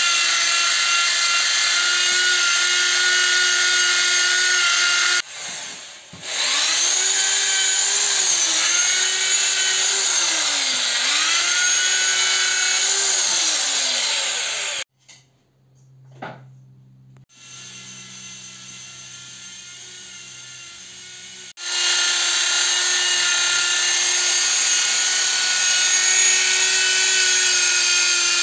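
Corded electric drill spinning a wire cup brush against a brake drum: a steady motor whine with the rasp of the wire bristles on the metal. The pitch sags several times as the brush is pressed in under load. The drill stops briefly about five seconds in and again for several seconds in the middle, then runs steadily again.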